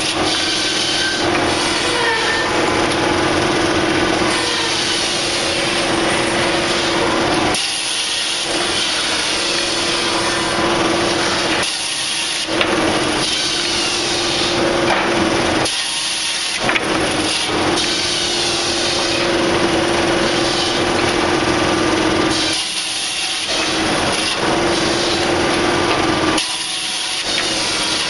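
Cylinder stave saw, a drum-shaped barrel saw, cutting curved staves from a spruce block. A continuous loud sawing rasp runs over a steady machine hum, with brief lulls every few seconds between cuts.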